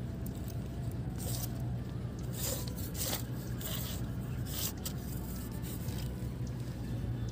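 About half a dozen brief scraping rustles in the first five seconds, over a steady low hum.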